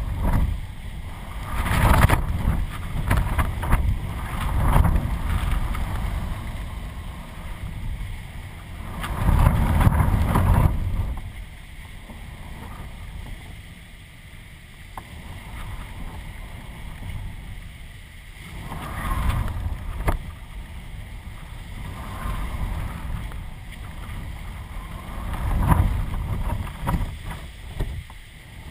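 Strong gusty wind buffeting the microphone of a camera mounted on a kite, a low rumbling rush that swells into loud surges every few seconds, with a calmer spell in the middle.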